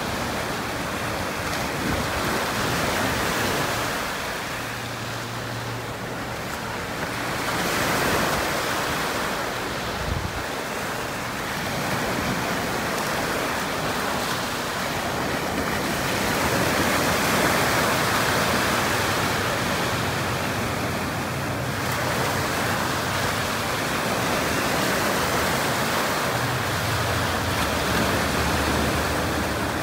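Sea surf washing against a harbour breakwater, a steady rushing that swells and eases every few seconds. A faint low hum from a small boat's outboard motor comes in near the end.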